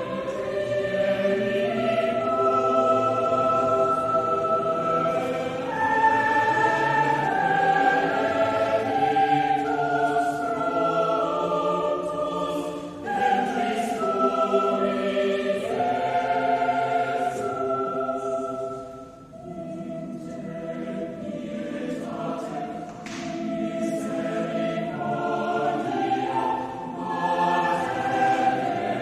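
Choir singing slow, held notes in several voice parts, with a short break between phrases about two-thirds of the way through.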